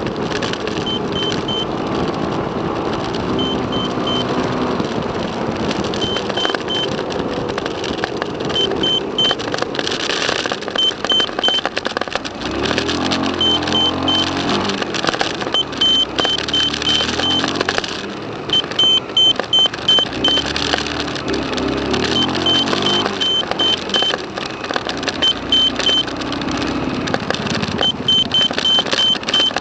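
Road and engine noise inside a moving car, with a short high-pitched beep sounding in quick groups of about three, repeating every couple of seconds.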